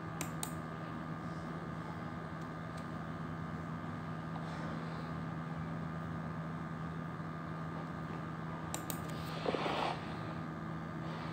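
Steady room hum with a low drone, picked up by a phone microphone, with a couple of faint clicks and a short soft rustle a little over nine seconds in.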